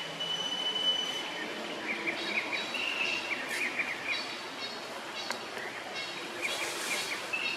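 Outdoor forest ambience: birds calling, with a high held whistle near the start and then clusters of quick repeated chirps, over a steady background hiss.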